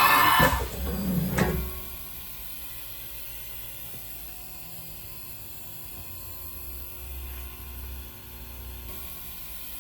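Haas VF-2 CNC vertical machining center: a loud mechanical whine cuts off about half a second in, with a shorter burst of machine noise about a second later. After that the machine gives a low steady hum with a few gentle swells.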